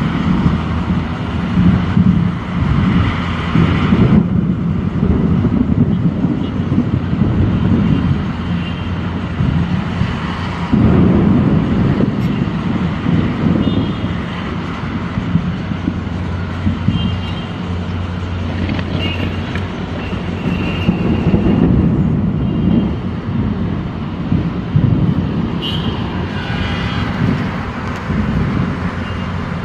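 Steady vehicle or traffic noise: a low rumble that swells and eases, with a few brief higher tones here and there.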